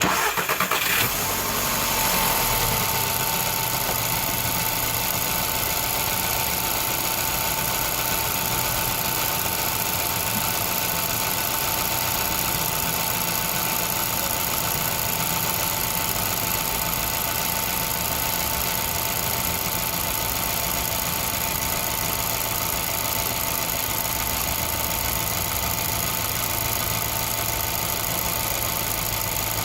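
Volkswagen Golf 6 1.2 TSI turbocharged four-cylinder petrol engine settling into a steady idle within the first two seconds, with a constant high-pitched whine running through it. This is the strange noise the owner means to show, with no cause named.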